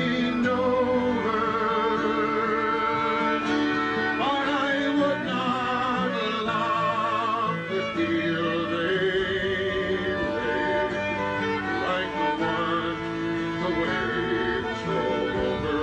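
Live folk music: a fiddle carries the tune with a wide vibrato over a steady accompaniment.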